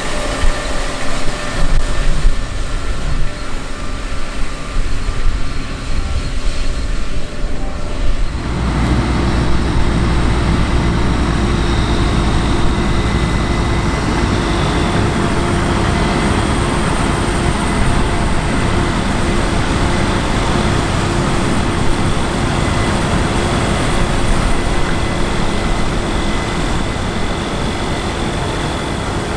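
Large diesel farm machinery running in the field, a steady engine rumble with a constant mechanical whine over it. About eight and a half seconds in, the sound changes abruptly to a louder, deeper and steadier running sound.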